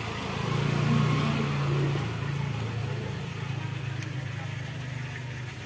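A motor scooter's engine running close by, swelling to a peak about a second in and easing off as it passes, over a steady low engine hum.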